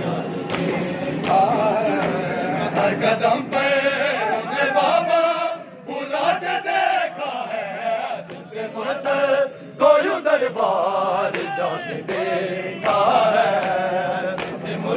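A group of men chanting a noha, a Shia mourning lament, with gliding sung lines, and scattered sharp slaps of hands striking chests in matam.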